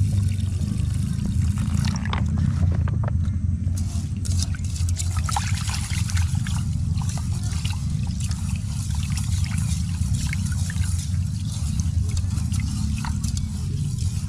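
Water poured from a collapsible water bag into a metal pot of rice, then a hand swishing and rubbing the rice in the water to wash it, with short wet splashes and sloshing. A steady low rumble runs underneath.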